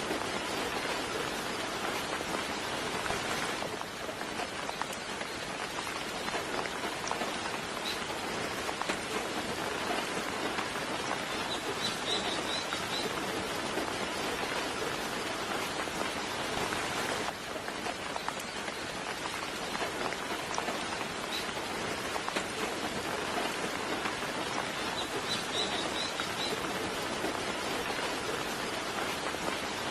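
Soft, steady rain falling, with two short bursts of high bird chirps, one in the middle and one near the end.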